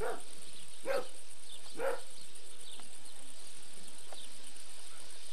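A dog barking three times, about a second apart, then falling silent, with a few faint high chirps after.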